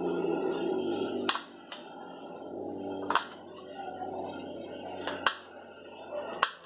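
Kitchen knife cutting through button mushrooms and knocking on a plastic tray, four sharp taps a second or two apart.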